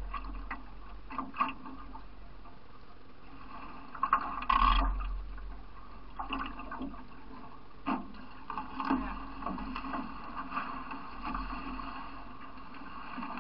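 Water splashing around a solo racing canoe as it is paddled, in irregular surges, with the loudest splash about four to five seconds in.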